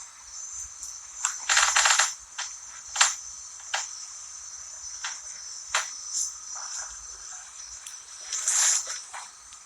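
Steady high-pitched chirring of insects, with scattered sharp clicks and a short rustle about one and a half seconds in.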